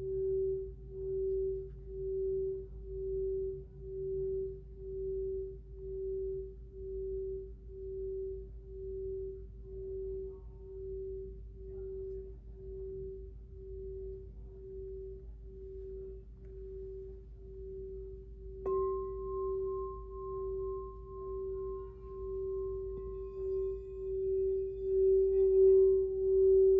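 A 6-inch smoky quartz crystal singing bowl tuned to G rings with one steady, pure tone that pulses about once a second. About 19 seconds in it is struck again, adding a higher ringing overtone, and the tone grows louder near the end.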